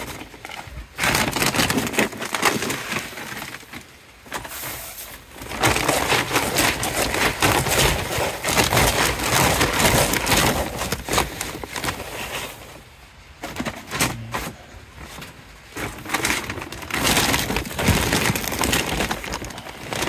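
Woven plastic feed bag rustling and crinkling as a plastic tub scoops through dry sweet feed and cracked corn, the grain rattling and pouring, in three long bursts with short pauses between.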